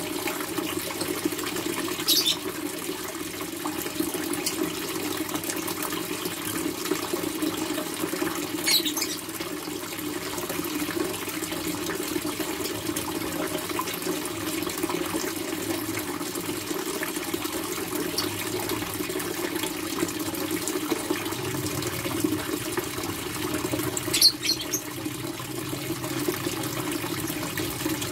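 Water circulating in a goldfish tank's pump-and-hose filter setup, a steady splashing and bubbling, with three brief sharp ticks along the way.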